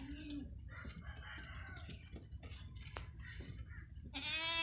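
Goats bleating: a short bleat at the start and a loud, drawn-out bleat near the end, with fainter animal sounds in between.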